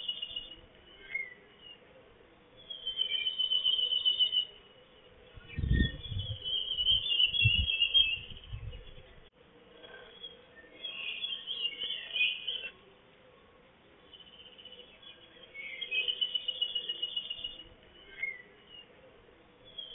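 A songbird singing a high, finely trilled phrase about every three to five seconds, the phrases varying from one to the next. Low rumbles come in about six to nine seconds in.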